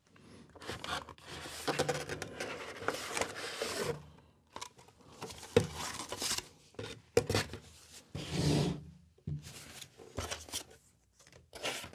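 Rustling and scraping of a cardboard packaging insert being handled and lifted out of a box, with a few sharp clicks and knocks in between.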